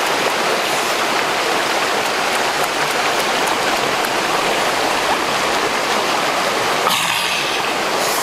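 Steady rushing of a shallow rocky stream running over small cascades, with an abrupt change in its tone about seven seconds in.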